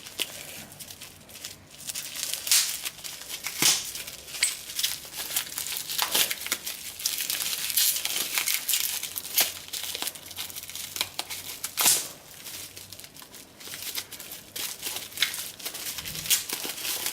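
Packaging being crinkled and torn open by hand, an irregular run of crackles and rustles with several sharper rips.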